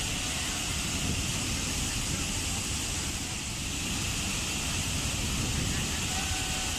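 Waterfall: a steady rush of falling water, a low rumble under a broad hiss, unchanging throughout.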